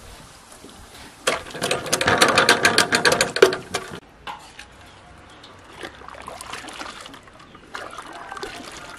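Wet silk skeins squelched and splashed by hand in a pot of dye liquor: a dense, loud run of rapid wet crackles for a couple of seconds that stops abruptly. After that comes a softer patter of bubbling and stirring in a steaming dye bath.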